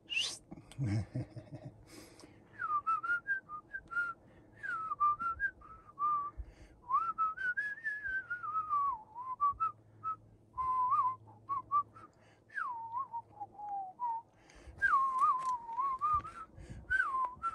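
A person whistling a wandering tune of gliding notes in short phrases with breaks between them. It opens with a brief, high upward swoop and a few low thumps.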